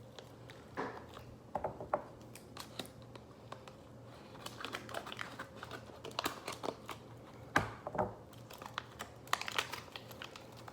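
MRE plastic food packets being handled and opened, crinkling in irregular bursts with scattered small clicks and taps.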